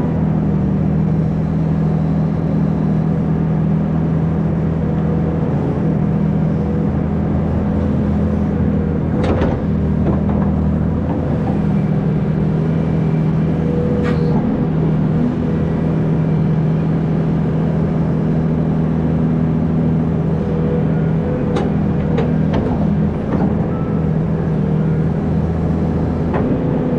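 Hydraulic excavator's diesel engine running steadily while digging, with a handful of short sharp knocks scattered through it.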